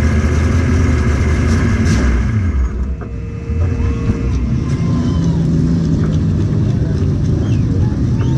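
Street stock race car's V8 engine idling, heard from inside the car; its note drops about two and a half seconds in, then it settles into a steady low idle.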